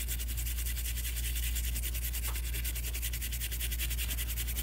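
Small stiff-bristled brush scrubbing a PS4 power supply circuit board clean, in rapid back-and-forth strokes of about ten a second. A steady low hum runs underneath.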